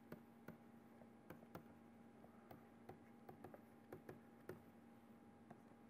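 Faint, unevenly spaced taps and clicks of a stylus on a pen tablet while handwriting, over a steady faint electrical hum.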